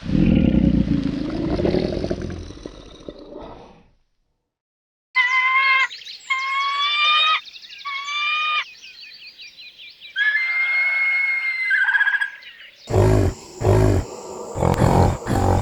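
Animal calls in quick succession: a loud low rough call fading out, a short silence, then a series of high, whistled bird-like calls, then loud repeated low grunting calls near the end.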